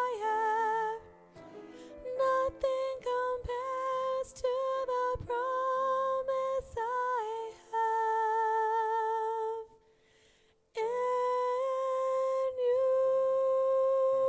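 Music: a woman singing solo into a microphone, wordless long held notes, some with vibrato. There is a short break about ten seconds in.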